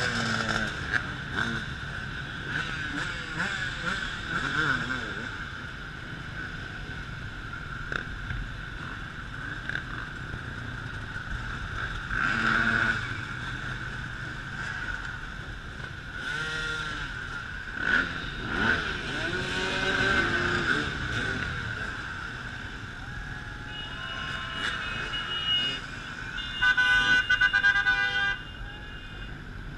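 A stream of dirt bikes riding slowly past, their engines revving up and down one after another. Near the end a loud horn sounds in bursts for about two seconds.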